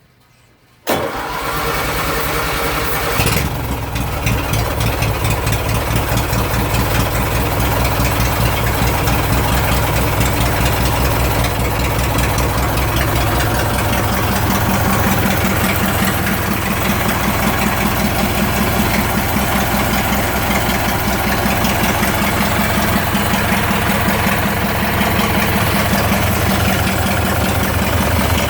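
Rebuilt lawn mower engine firing up about a second in, changing its note about three seconds in and then running steadily with an even firing beat. It is the engine's first run since the rebuild.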